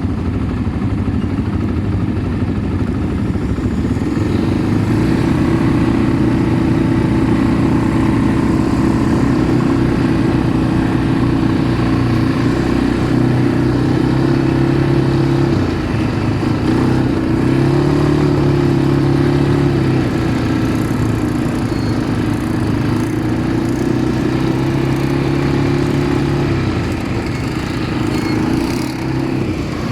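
Automatic ATV engine running under way, its note rising about four seconds in, dipping briefly around sixteen seconds, then rising again for a couple of seconds before settling.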